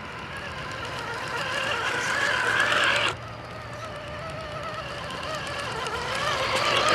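Axial RR10 Bomber RC truck's electric motor and geartrain whining as it drives, rising in pitch, in two stretches with a break about three seconds in. A fine clicking runs through it, which the owner traced to the transmission running short of grease.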